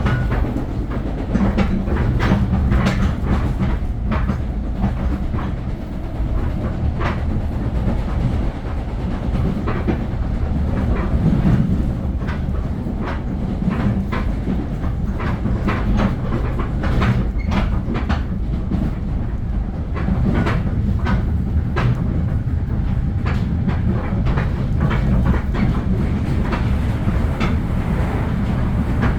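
Metro-North commuter train running along the track: a steady low rumble with frequent, irregular clicks and clacks from the wheels on the rails.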